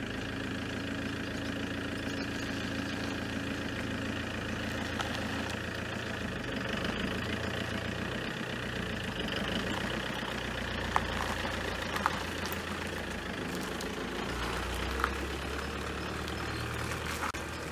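Iveco van's engine running steadily, with a few short clicks or rattles over it.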